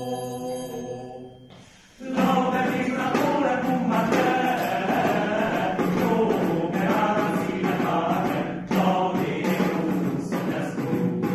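Men's choir singing: a held chord dies away, and after a short pause about two seconds in, the voices come in again and sing on.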